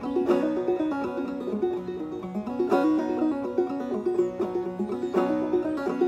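Five-string banjo played solo in clawhammer style: a steady old-time melody of picked notes and brushed strokes, with the banjo tuned a half step below open G (f# C# F# A# C#).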